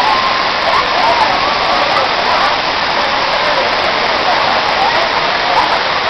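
Waterfall: water falling in several streams down a broad rock face into the pool below, a loud steady rush.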